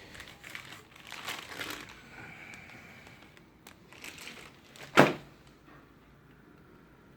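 Packaging crinkling and rustling as it is handled, with one sharp knock about five seconds in.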